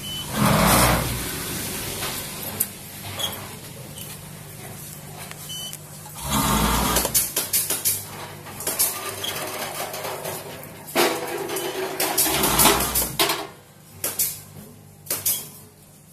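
Powder sachet packaging machine running: a steady motor hum, broken by louder stretches of rattling and rustling noise and scattered sharp clicks.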